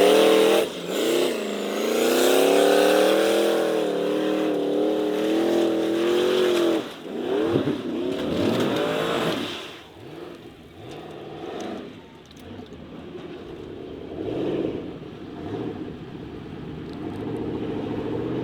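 Formula offroad race car's engine revving hard, its pitch rising and falling over and over. About seven seconds in the revs swoop up and down, and after about ten seconds the engine sounds quieter and more distant.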